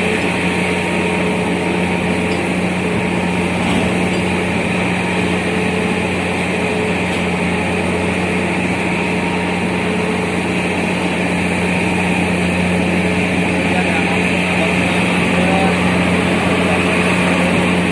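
Steady low drone of running engines and machinery, an unchanging hum with a faint whine above it.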